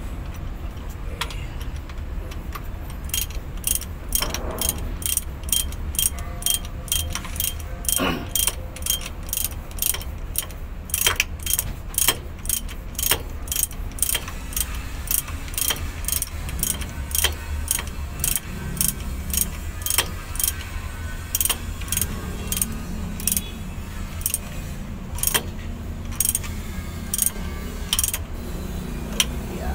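Socket ratchet wrench clicking in runs, about two to three clicks a second, as bolts are turned on a truck transmission's output housing, over a steady low hum.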